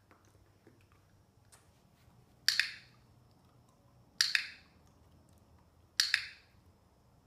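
Dog-training clicker clicked three times, about every 1.7 seconds. Each is a sharp double click, the press and release of the clicker, used as a marker for the puppy's behaviour.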